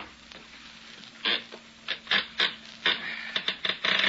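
Radio-drama sound effect of a wooden crate being pried open: a run of irregular scraping and creaking wood noises, growing denser and loudest near the end, over a faint steady hum.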